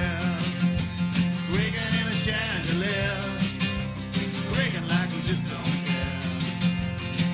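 Country-style band music: drums keeping a steady beat over bass and guitars, with a lead line bending in pitch.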